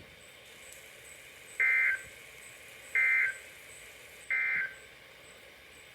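Three short, identical buzzy data bursts about 1.3 seconds apart, with faint radio hiss between them, played through a WR-300 weather radio's speaker: the EAS end-of-message (NNNN) SAME code bursts that close a NOAA Weather Radio alert.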